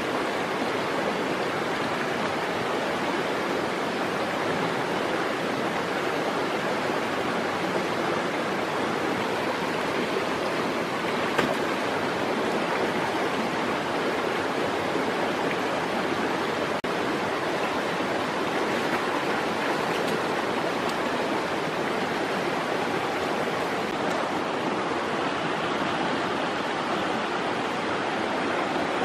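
Shallow rocky stream rushing steadily over stones. One brief sharp tap sounds about eleven seconds in.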